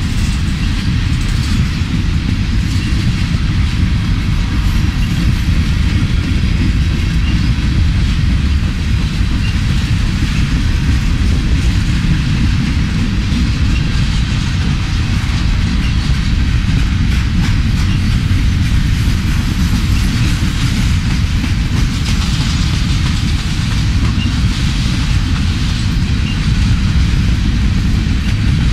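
Freight train of covered hopper cars rolling past close by: a steady, loud rumble of steel wheels on rail, unbroken throughout.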